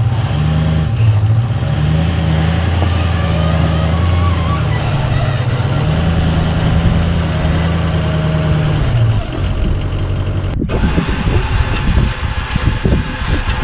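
Truck engine running at low revs while reversing a flatbed trailer, its pitch rising and falling a little. About ten seconds in the sound cuts to a rougher, uneven mechanical noise with irregular knocks.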